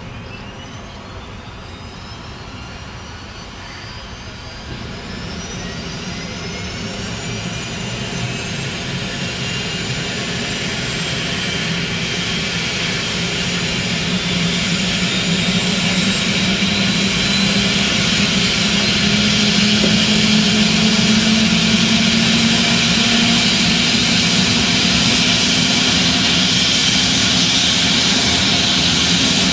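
Sikorsky S-76 helicopter's twin turboshaft engines starting up. A turbine whine climbs steadily in pitch over the first ten seconds or so while the sound grows louder. A lower tone rises slowly as the rotors come up to speed.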